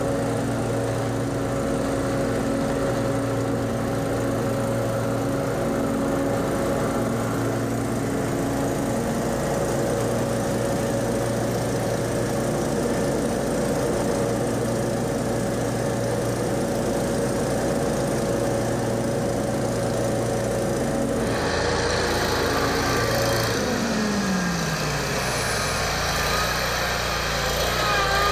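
Backpack leaf blower engine running steadily. About three quarters of the way through it gives way abruptly to a Gravely zero-turn mower's engine, whose pitch falls steadily over a couple of seconds as it throttles down.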